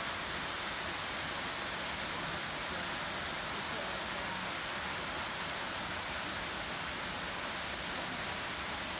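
Waterfall pouring down a rock face, a steady rush of falling water.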